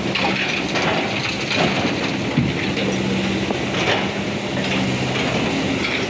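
Excavator engine running steadily while the ripper bucket works the ground, with scattered crunching and clicking and one sharper knock a little over two seconds in.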